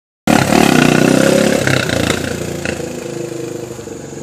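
Small dirt bike's engine running loud as it pulls away, then fading steadily as the bike rides off.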